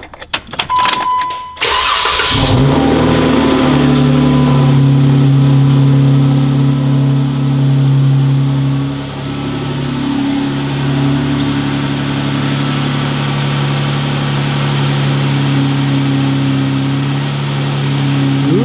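A short electronic beep, then the Jeep Wrangler's 3.6-litre Pentastar V6 cranks and starts about two seconds in. It runs at a fast idle that drops around nine seconds in and settles into a steady idle. It is running without the rocker tick, its broken rocker arm just replaced.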